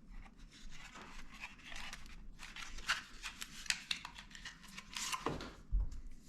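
Packaging being handled as parts are taken out of a box: irregular rustling, crinkling and small clicks, with a louder scrape and a low thump near the end.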